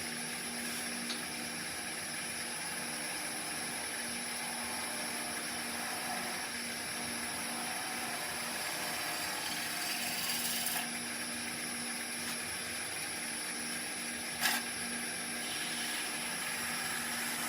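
Oneway 2436 wood lathe running at a steady speed while a turning gouge cuts a spinning green-wood spindle, giving an even hum with a hiss of cutting. One sharp tick sounds about three-quarters of the way through.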